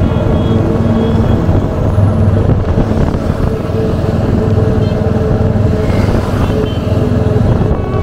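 Royal Enfield Hunter 350's 349 cc single-cylinder engine running steadily through its stock exhaust while under way, heard from the rider's seat.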